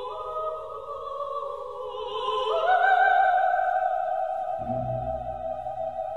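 Operatic singing: a voice holding long notes with vibrato, stepping up to a sustained high note that swells about two and a half seconds in, with a low accompanying note coming in near the end.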